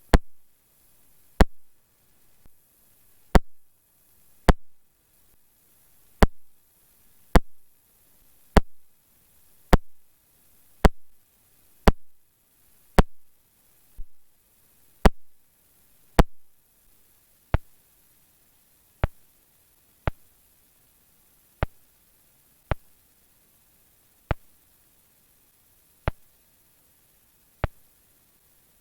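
A regular series of sharp single clicks, about one a second at first. They become a little slower and fainter in the second half.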